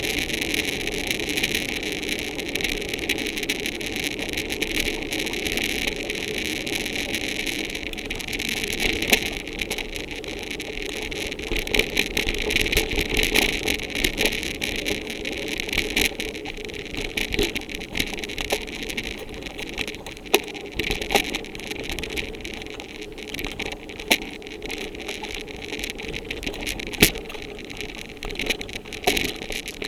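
Mountain bike rolling along a woodland trail: a steady rushing of tyres on gravel with wind, then rattling from the bike and sharp knocks over bumps on the dirt track in the second half.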